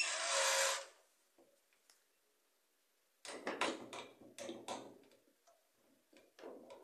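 Electronic keycard lock on a door: a short buzzing burst in the first second as the card is held to the reader. Then a run of sharp clicks and rattles from about three to five seconds in as the lock's handle is gripped and worked, and a couple more clicks near the end.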